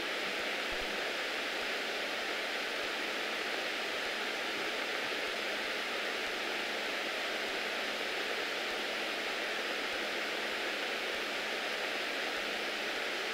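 Steady, even hiss of a Beechcraft Bonanza F33A's cockpit intercom audio feed, the cabin noise reduced to a flat rush with no clear engine note.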